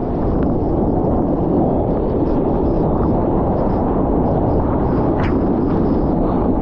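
Muffled rush of water and wind against a waterproof action-camera housing, heard as a steady low rumble. A short knock comes about five seconds in.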